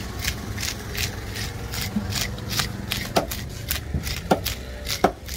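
A knife blade scraping the scales off a whole fish: a quick run of short rasping strokes, about three a second, with a few louder knocks of the blade in the second half.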